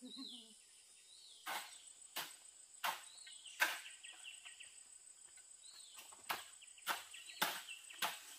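Sharp knocks at a steady pace, about one every two-thirds of a second, in two runs with a pause between. The fourth knock is the loudest. Behind them run a steady high insect drone and repeated falling chirps.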